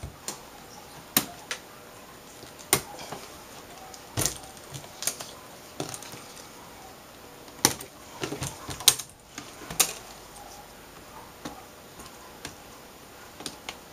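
Plastic clips of an LCD panel's frame snapping loose as the frame is pried off: sharp clicks at irregular spacing, about one every second or two, with light handling rustle between them.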